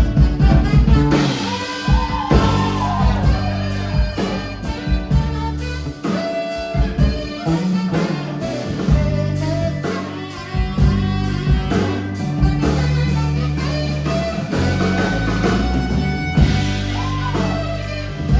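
Band music: guitar over a steady bass line and drums, with a few bent notes.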